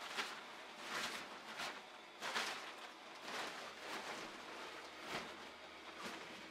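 Rustling of an airblown inflatable's nylon fabric as it is handled and shifted, a string of irregular short swishes, over the faint steady hum of its blower fan.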